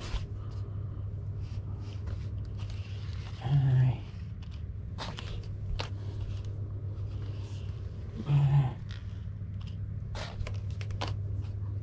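Fishing line being pulled by hand off a Shimano Plays 3000 electric reel, a metre at a time. Scattered scrapes and rustles of line and hands over a steady low hum.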